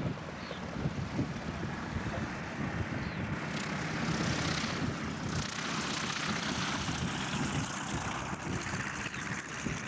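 Piston-engined propeller airplane running, growing louder over the first four or five seconds and then holding steady.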